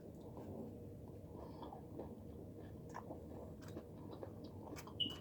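Faint close-up chewing of food, with scattered small wet mouth clicks and one sharper click near the end.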